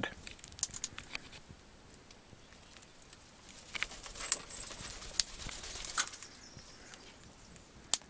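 Australian king parrots close by, with wing flapping and scattered sharp clicks and taps. A louder stretch of flapping comes between about four and six seconds in.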